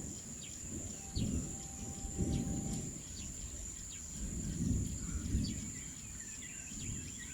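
Birds chirping in short notes over a steady high insect drone, with a few low rumbles rising and fading every second or two.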